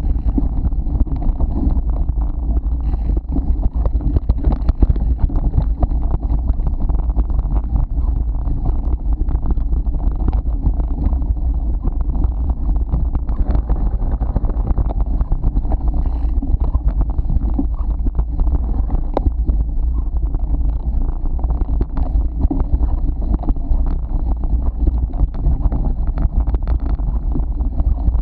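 Wind buffeting the microphone of a camera on a mountain bike riding fast over a dirt trail, with a steady stream of small rattles and knocks from the bike bouncing over rough ground.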